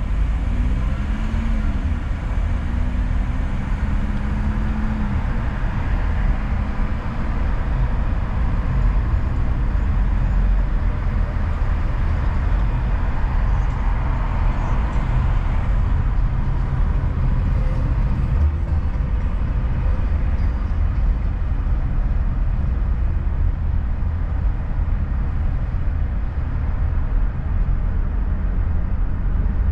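Steady low rumble of a car driving, with road and engine noise. A brief pitched tone wavers up and down in the first few seconds.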